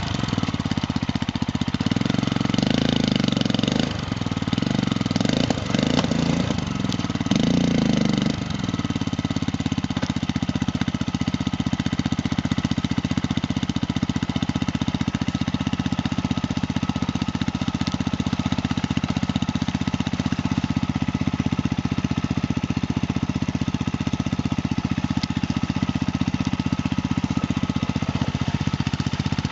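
Triton 450 Supermoto quad engine revved in several short bursts for the first eight seconds or so, then running at a steady, even speed.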